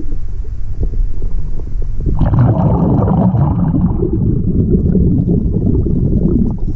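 Muffled underwater rumble picked up through a GoPro housing. About two seconds in comes a rushing burst of bubbling that fades over a couple of seconds, like a diver's exhaled air venting from a scuba regulator.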